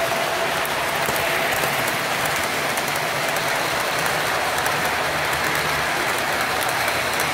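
O scale model trains running on the layout's track: a steady rolling rattle of wheels on the rails with light clicking and a faint motor whine as the cars pass.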